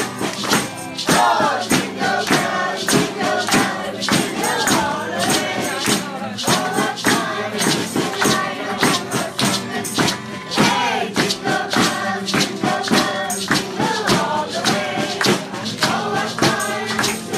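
A mixed group of adults and children singing a Christmas carol together, accompanied by a strummed acoustic guitar and a hand shaker keeping a steady rhythm.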